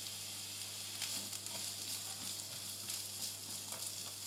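Diced onion and green pepper sizzling in olive oil in a frying pan, a steady crackling hiss over a low hum. A wooden spatula stirs through the vegetables near the end.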